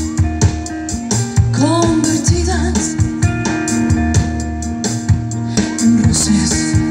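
A live band plays: drum kit hits keep a steady beat under electric guitar and bass chords. A woman's voice sings short gliding phrases about two seconds in and again near the end.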